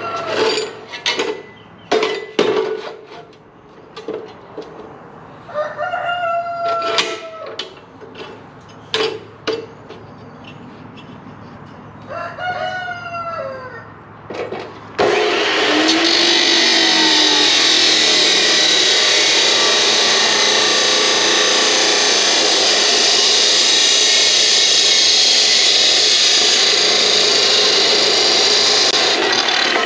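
Abrasive chop saw cutting through steel stock. It starts suddenly about halfway through and then runs loud and steady. Before it starts there are scattered knocks and clicks as the piece is set in the saw, and a rooster crows twice.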